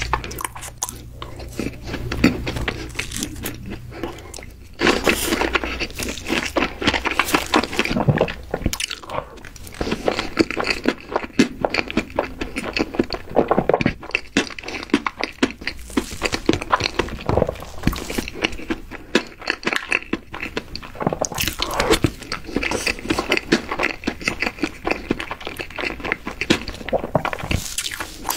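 Chewing and eating sounds of chocolate layer cake, a dense run of small clicks and wet smacks, with wooden chopsticks cutting into the soft cake. A faint low hum runs under the first few seconds.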